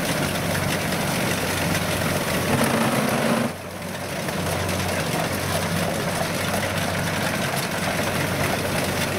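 Kubota DC70 combine harvester's diesel engine and machinery running steadily as it cuts ripe rice. The sound drops sharply about three and a half seconds in and builds back up.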